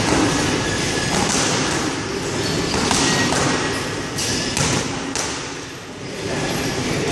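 Boxing-gloved punches smacking into focus mitts, several sharp hits at irregular intervals over steady background noise.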